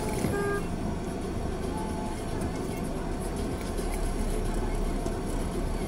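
Car engine and road rumble heard from inside the cabin, with the steady noise of a busy street outside.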